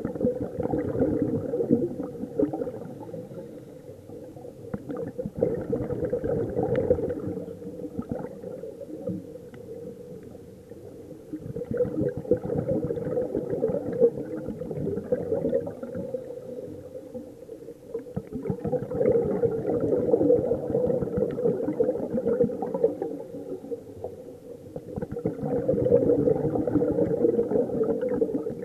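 Scuba diver's exhaled bubbles from the regulator, heard underwater as bubbly gurgling in bursts a few seconds long about every six to seven seconds, one burst per breath out.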